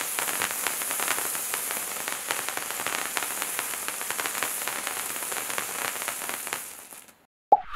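Bright Star Wizards Wands hand-held fountain firework burning: a steady high hiss with dense fine crackling of sparks, fading out near the end. After a brief silence, a loud whoosh starts at the very end.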